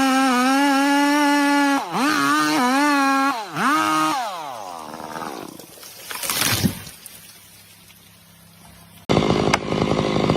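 Two-stroke chainsaw running at full throttle with a steady high whine, dipping briefly twice, then released so the revs glide down and the engine drops away about four seconds in. A short rushing burst follows, and about nine seconds in a loud chainsaw sound starts abruptly.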